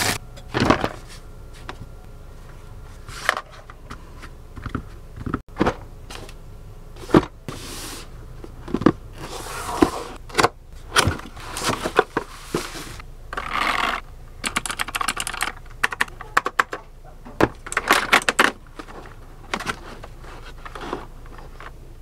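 Unboxing handling sounds: plastic packaging crinkling and rustling in short bursts, mixed with irregular clicks, taps and scrapes as a keyboard and its box are handled.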